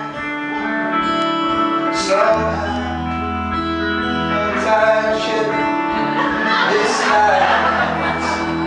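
Small band playing live: acoustic and electric guitar with keyboard, and men's voices singing. A low bass line comes in about two seconds in.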